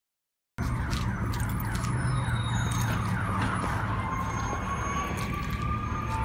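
A siren sounding, starting suddenly about half a second in: quick repeated up-and-down sweeps, then a slower long rising wail, over a steady low hum.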